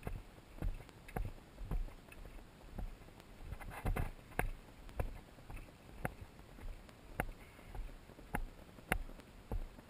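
Footsteps on a packed dirt trail at a steady walking pace, a little under two steps a second, with a brief rougher scuffing noise about four seconds in.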